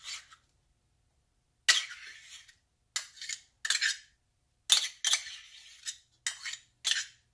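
Metal spoon scraping and clinking against a stainless steel measuring cup as peanut butter is worked out of it into a glass measuring cup: about six short scrapes with quiet gaps between them.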